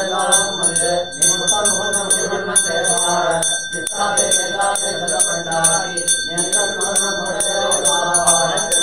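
Brass puja hand bell (ghanta) rung without pause, its clapper striking several times a second and the bell ringing on steadily over it. Under the bell a man's voice chants a mantra.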